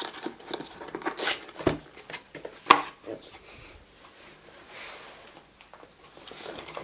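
Unboxing handling noise: cardboard and plastic packaging being opened and moved about, with scattered clicks and knocks and light rustling. The sharpest knock comes about two and a half seconds in.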